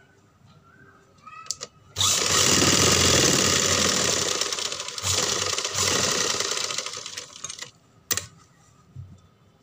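Sewing machine stitching at speed, starting about two seconds in and running for about five seconds with a short slowdown midway. A single sharp click follows when it stops.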